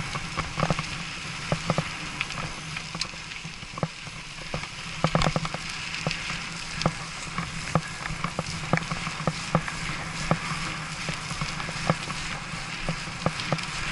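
Bicycle riding over a rough path surface: a steady hiss of tyres and wind with frequent irregular knocks and rattles as the bike and its mounted camera jolt over bumps.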